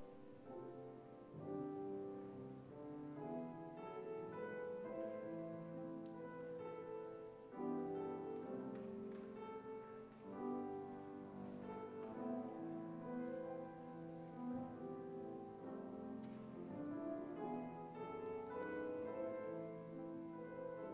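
Soft instrumental music on a keyboard instrument: slow, held chords changing every second or so, with no singing.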